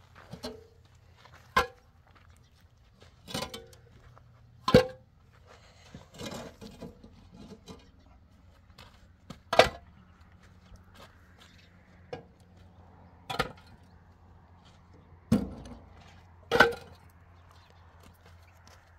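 Scattered sharp knocks and clatters, about eight of them at irregular intervals, over a faint steady low hum.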